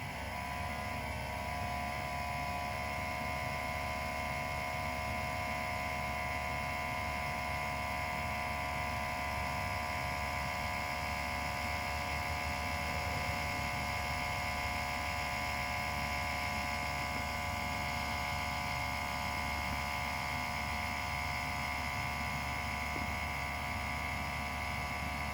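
A 2021 Mini Cooper SE's air-conditioning system running with a steady whine of several pitches over a low hum. The pitch rises and settles within the first couple of seconds, then holds. This is the AC noise the owner reports as a fault.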